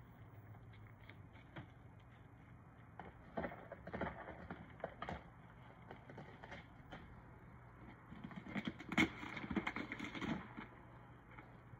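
Husky working at a cardboard box with kibble inside, nosing, pushing and tearing at it: two spells of rustling cardboard with sharp knocks and scrapes, the first about three to five seconds in, the louder second around nine to ten seconds in.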